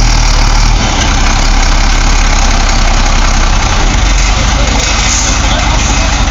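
Dump truck's diesel engine running steadily with a deep rumble.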